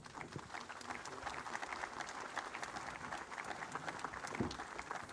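A crowd applauding, many hands clapping. The applause builds over the first second and then keeps up steadily, with a single dull thump near the end.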